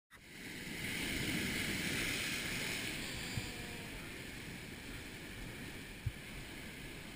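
Sea surf washing and foaming over a rocky shore, a steady rushing, with wind on the microphone and a couple of soft low thumps.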